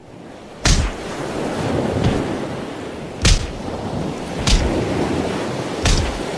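Sound effects for an animated logo reveal: a steady, thunder-like rumbling noise bed with four sharp impact hits, the first less than a second in and the others spaced a second or so apart.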